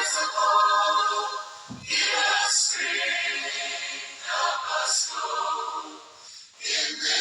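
Drawn-out, breathy voiced yawns, about four in a row, each lasting one to two seconds.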